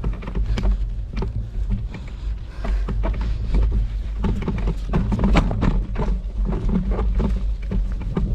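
Bicycle rolling over a rough dirt trail: a constant low rumble with many irregular sharp clicks and rattles as the bike jolts over the ground.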